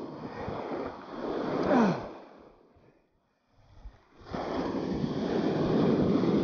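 Shallow surf washing and water churning around a wader's legs and a released shark. The sound drops away almost to nothing for a second or so in the middle, then comes back louder and steady.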